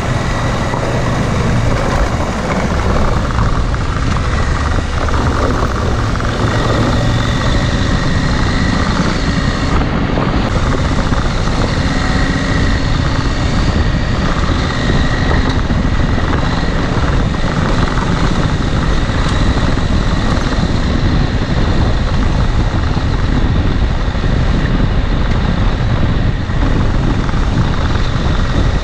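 Dual-sport motorcycle riding along: its engine running under a dense rush of wind noise, steady throughout.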